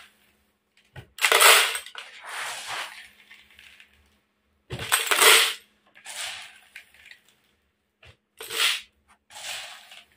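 Handfuls of dried corn kernels scooped from a plastic basin and poured into a plastic jar, rattling and pattering against the plastic. There are about six pours with short pauses between them, the loudest about a second and a half in and about five seconds in.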